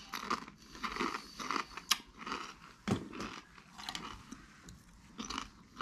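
A person chewing food close to the microphone, with irregular crunches and a few sharp clicks about two and three seconds in.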